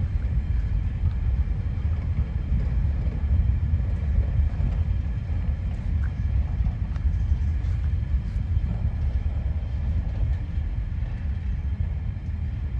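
Empty grain freight train rolling by with a steady low rumble.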